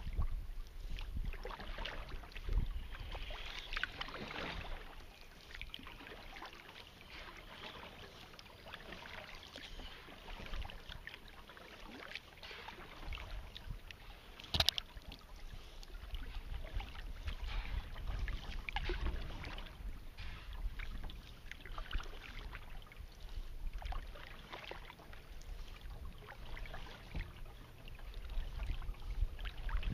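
Kayak paddle strokes dipping and dripping in calm water, in an irregular rhythm, with a low rumble at times. One sharp tap about halfway through stands out as the loudest sound.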